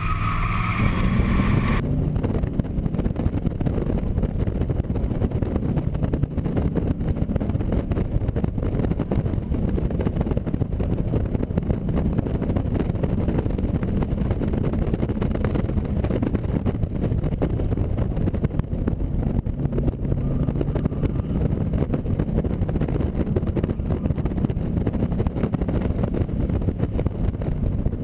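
AC Cobra Mk IV's V8 engine running hard up a mountain race course, its pitch rising and falling several times as the driver works through the gears.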